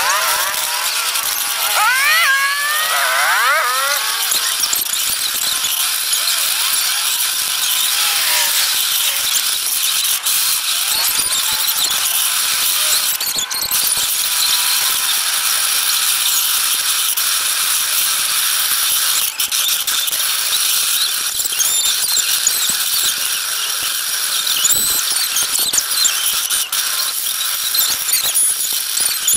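Steady squeaking and rattling of a child's bicycle rolling along pavement, heard close up from a camera mounted on the handlebars, with a few squealing rises and falls near the start.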